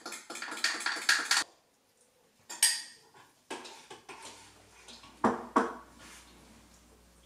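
A metal utensil whisking flour and cream in a ceramic mug: rapid clinking against the mug for about a second and a half. Then scattered clinks of the utensil against a steel pot as the mixture is stirred into the sauce, with two sharp clinks a little after five seconds in.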